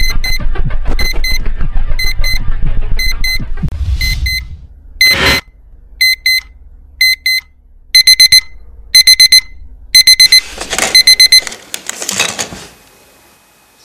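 Electronic alarm clock beeping in short high bursts: pairs of beeps about once a second, then quicker groups of four. The beeping stops when a hand switches it off, followed by a brief rustle. A dense low rumble runs under the first four seconds, and a single loud burst of noise comes about five seconds in.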